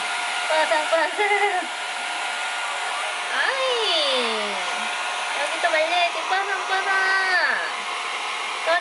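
Handheld hair dryer blowing steadily on a wet cat's fur, a constant rush of air with a steady motor whine. Over it, a voice rises and falls in gliding notes several times.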